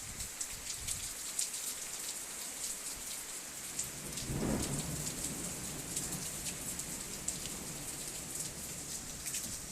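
Heavy rain and sleet falling: a steady hiss with many small sharp ticks of drops striking. A low rumble swells and fades about halfway through.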